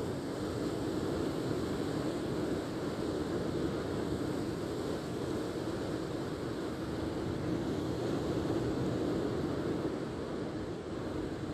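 Steady rushing noise with no distinct events, like wind or surf.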